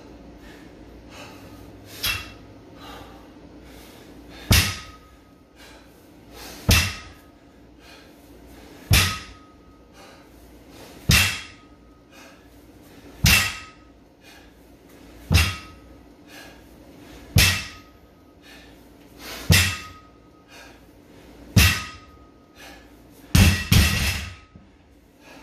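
135-pound barbell with iron plates set down on the rubber-matted floor once per deadlift rep, about every two seconds: each rep is a sharp thud followed by a short metallic ring from the plates. Near the end several hits come in quick succession as the bar is let go and rattles to rest.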